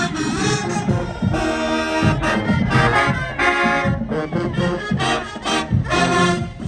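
Marching band playing: brass section (trombones and trumpets) sounding loud held and punched chords over pounding drums.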